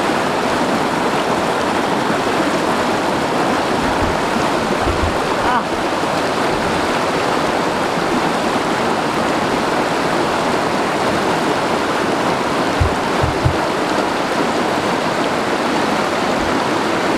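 Small rocky stream rushing over a cascade in a steady, even wash of water noise, with a few brief soft low bumps in the middle and about three-quarters through.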